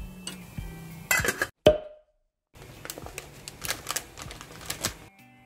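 Chopsticks knocking and clinking against a thin aluminium ramen pot, with one sharp clink that rings briefly. After a short dropout, a plastic instant-ramen wrapper crinkles in the hand with a quick run of clicks.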